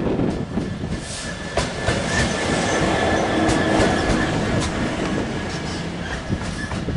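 Freightliner Class 66 diesel-electric locomotive running light past at close range, its two-stroke EMD V12 engine running. A few clicks of the wheels over rail joints come through as it goes by.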